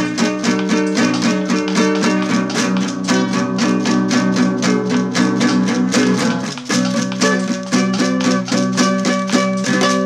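Nylon-string classical guitar with a capo, played in fast, even repeated strokes, about four or five a second, with a chord change a little past halfway; the final chord is left ringing near the end.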